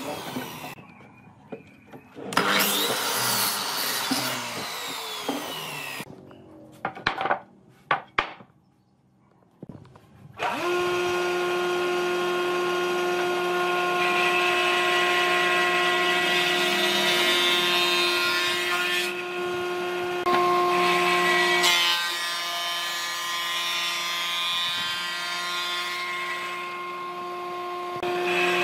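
A power miter saw cuts wood in the first few seconds, followed by a few handling knocks and a short lull. About ten seconds in, the electric motor of a combination jointer-thickness planer starts abruptly and runs with a steady hum. Twice it swells into the loud hiss of the cutterhead planing boards fed through it.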